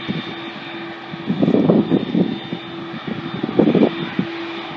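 Aircraft engine noise with a thin steady high whine, broken every second or two by low rumbling gusts of wind buffeting the microphone.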